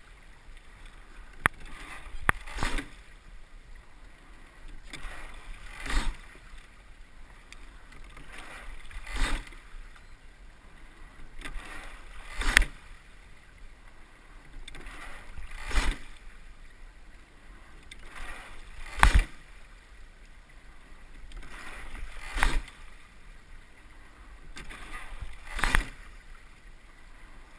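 Sculling boat being rowed at an easy, steady rate of about one stroke every three seconds: each stroke brings a rising swish of water that ends in a sharp clack of the oars in their oarlocks.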